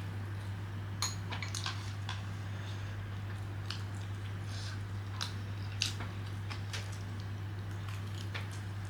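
Eating up close: chewing with scattered small clicks of chopsticks against a dish, over a steady low hum.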